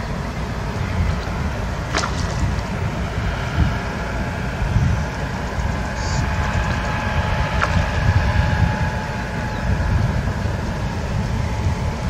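Wind buffeting the microphone as a steady, uneven rumble, with a faint click about two seconds in and another near eight seconds.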